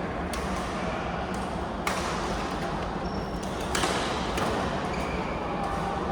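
Indoor court game: three sharp ball strikes spaced a second or two apart, and short high squeaks like sneakers on the floor, over a steady hall background.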